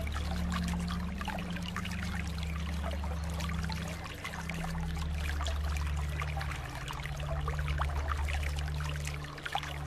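Running water trickling and splashing steadily, with many small bubbling splashes. Beneath it a low steady hum shifts in pitch every second or two.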